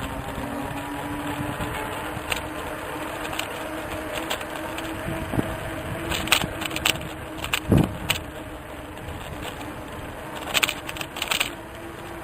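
A vehicle running with a steady hum and road noise, broken by a few short knocks and rattles about six, eight and eleven seconds in.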